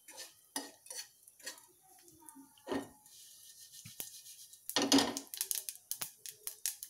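Tadka of mustard seeds and curry leaves crackling in hot ghee in an aluminium pot, heard as scattered sharp ticks, with a spoon clinking against the metal. About five seconds in comes a louder clatter as the pot is set back down on the gas burner's grate, followed by a quick run of ticks.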